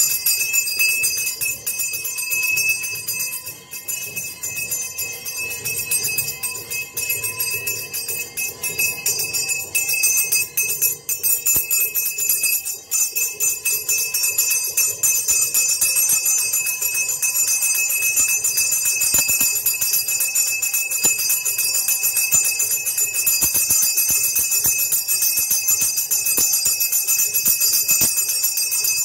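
Brass hand bell (ghanti) rung without pause during aarti, a steady, dense, high ringing.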